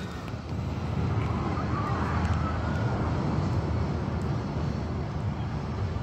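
Steady low rumble and hiss of outdoor background noise, with some wind on the microphone.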